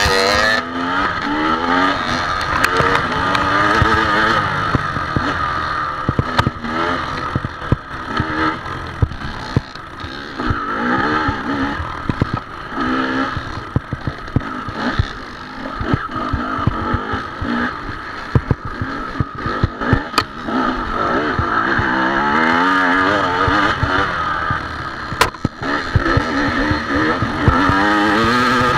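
Off-road dirt bike engine heard from on the bike, revving up and down again and again as the throttle is worked along a rough trail. Frequent short knocks and clatter from the bike bouncing over the ground.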